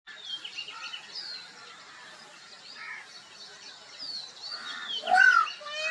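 Mixed birdsong: many short, faint chirps and whistles sliding up and down in pitch, with a louder bird call about five seconds in.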